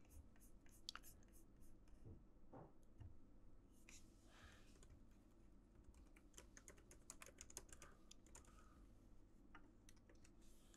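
Faint computer keyboard typing: scattered key clicks, with a quick run of keystrokes past the middle.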